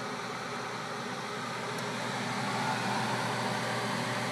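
Steady rushing hum of a running HVAC air-handler (electric fan coil) blower, growing slightly louder about two and a half seconds in.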